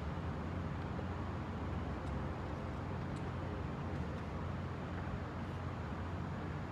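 Steady low room rumble, with two faint clicks from the chess game about two and three seconds in.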